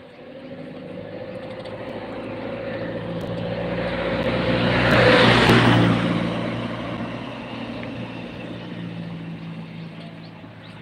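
A heavy road vehicle driving past: its engine and tyre noise grow louder for about five seconds, are loudest about halfway through, then fade as it moves off.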